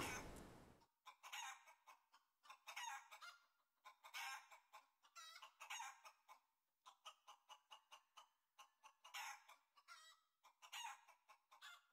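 Faint chicken clucking: a string of short, irregular calls with brief gaps between them.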